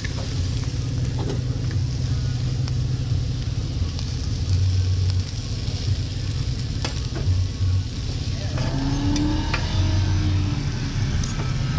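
Food sizzling on a hot griddle, over a steady low rumble, with a few light clicks.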